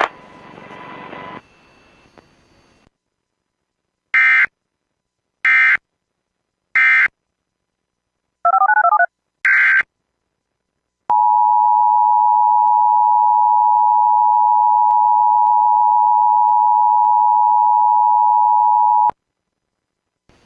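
Emergency Alert System tones: three short screeching bursts of digital alert code about a second and a half apart, then two more bursts. These are followed by the steady two-tone EAS attention signal, held for about eight seconds before it cuts off sharply. This is the coded data and alarm tone that close one emergency alert and open the next.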